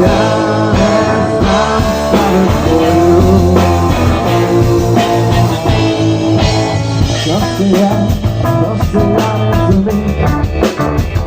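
Rock band playing: electric guitar, bass and drums in a steady beat, with sung phrases here and there.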